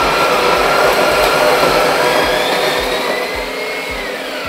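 Wilfa electric burr coffee grinder running, grinding a dose of coffee beans fine for Aeropress. Its motor whine creeps slowly higher in pitch, then about four seconds in the motor switches off and the whine starts to fall as it spins down.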